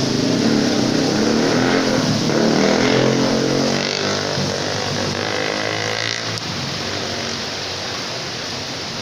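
A motor vehicle's engine passing by, loudest in the first few seconds and then fading away, over a steady hiss of heavy rain.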